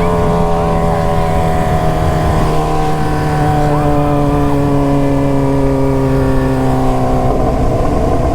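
Suzuki GSX-S750 inline-four motorcycle engine with a straight-through open exhaust running at steady road revs, its note sinking slowly, then changing near the end, with wind rumble underneath.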